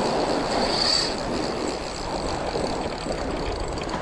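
Sea surf breaking and washing up the beach in a steady rush. A faint high-pitched whine swells briefly about a second in.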